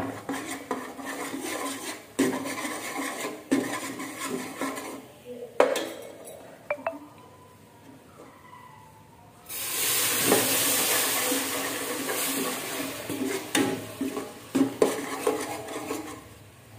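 A ladle stirring and scraping through thick sauce in an aluminium pot, knocking against the sides. About nine and a half seconds in, a loud sizzling hiss starts suddenly and keeps going under the stirring.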